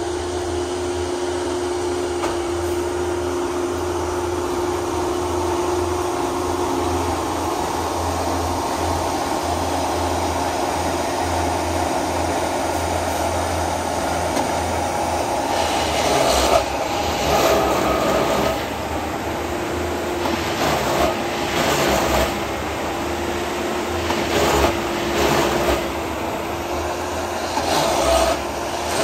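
Pandrol Jackson 6700 ballast tamper running with a steady engine hum. From about halfway through come repeated louder surges every second or two as its tamping heads plunge into the ballast and squeeze it.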